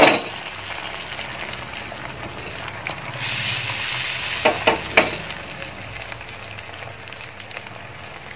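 Beaten egg with chopped onion sizzling as an omelette fries in the pan. A sharp knock comes right at the start, the sizzle swells about three seconds in, and two short knocks follow about a second apart.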